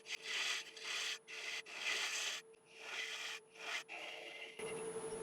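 A 3/8-inch spindle gouge cutting the tenon off the foot of a spinning Iroko bowl on the lathe, in about six short hissing passes. The cutting stops about four and a half seconds in, leaving a steady hum.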